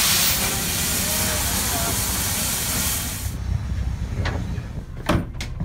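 Steam locomotive No. 9, a 1920s Montreal Locomotive Works engine, venting steam with a loud, steady hiss that cuts off suddenly a little over three seconds in. A couple of sharp knocks follow near the end.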